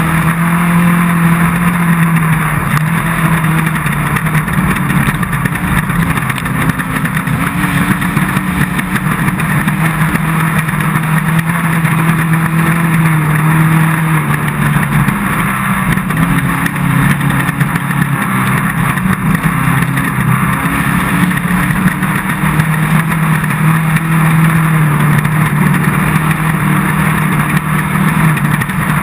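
Off-road race car's engine running hard at fairly steady revs, its pitch drifting slightly up and down, over a constant rough noise of the car at speed.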